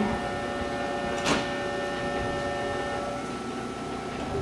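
Kintetsu electric train standing at the platform, its onboard equipment giving off a steady electrical hum of several tones that cuts out about three seconds in. A short, sharp burst of noise comes about a second in.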